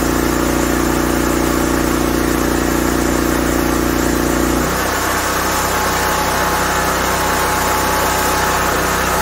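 Generac LP5500 propane generator running steadily under a 3 kW load test. About halfway through, its note changes abruptly: the deep hum drops away and a higher tone comes up.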